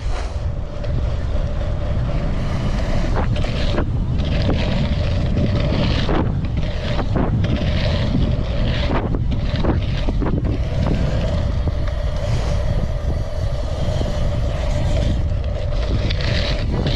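Wind buffeting an action camera's microphone as a race BMX is ridden at speed on a dirt track, with a steady hum from the rolling bike and several sharp knocks from about three to ten seconds in.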